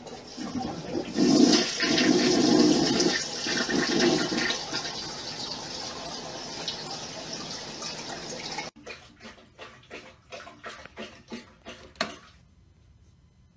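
Toilet flushing, water rushing into the bowl for about eight seconds until it cuts off abruptly. Then comes a quick, irregular run of sharp clicks and taps lasting about three seconds.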